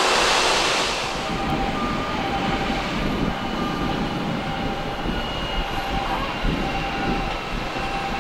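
Boeing 787-8 jetliner's Rolls-Royce Trent 1000 engines running at idle as it pulls into the gate: a steady low rumble with faint whining tones. A louder hiss drops away about a second in.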